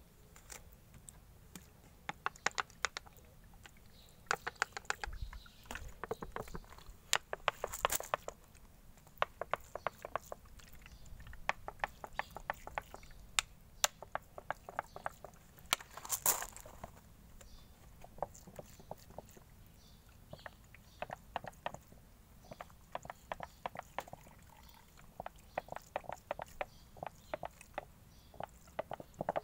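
A thin plastic drink bottle crackling and crinkling as it is handled and squeezed to water potted seedlings: uneven runs of quick clicks, with louder crackles about 8 and 16 seconds in.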